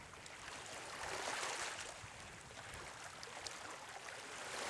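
Small choppy waves softly lapping and washing around a wader standing in shallow sea water, swelling and easing.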